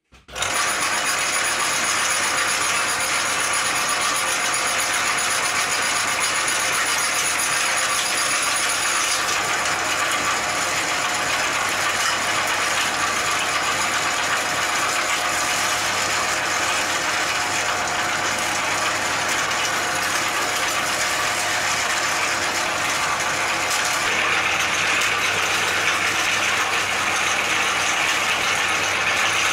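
Fu Shi belt-driven meat grinder running steadily as it grinds hard-boiled Easter eggs. Its tone changes about nine seconds in and again near the end.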